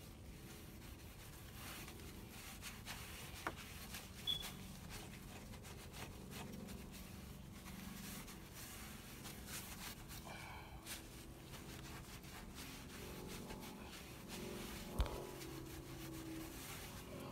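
Faint rubbing and swishing of a stain-soaked paint mitt wiped up and down a wooden deck spindle. There are a few small clicks, and one sharp knock near the end.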